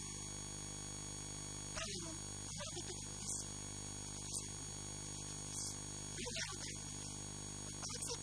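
Steady electrical hum of several tones in the recording, with short, broken snatches of a man's voice breaking through it every second or so.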